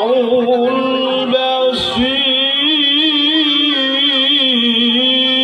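A man's voice in melodic Quran recitation (tilawah), holding long ornamented notes with a wavering pitch, amplified through a microphone and PA. The held note breaks briefly about two seconds in and resumes slightly higher.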